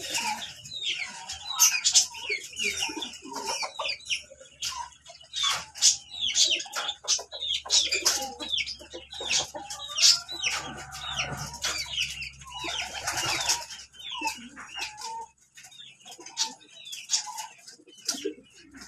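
Backyard pigeons and chickens: hens clucking and wings flapping amid many short, high bird chirps, with a longer drawn-out call near the middle.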